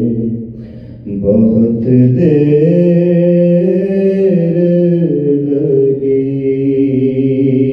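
A man's solo voice chanting soz, a mourning lament, in long held notes that step slowly up and down; the voice falls away briefly near the start and comes back just after a second in.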